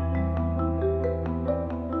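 Background music: a mallet-percussion melody struck about four notes a second over a held bass note.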